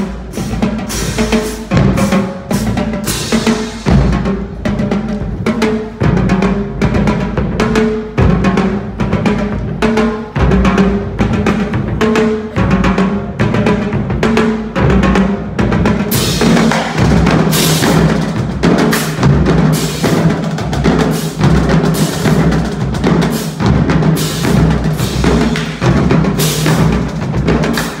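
Marching drumline playing a fast, dense cadence on snare drums, tenor drums and pitched bass drums. From about halfway in, crash cymbals join with repeated crashes over the drums.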